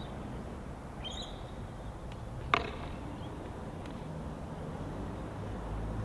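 Outdoor ambience over an open concrete lot: a steady low rumble, a faint bird chirp about a second in, and one sharp click about two and a half seconds in. The rumble grows a little louder near the end.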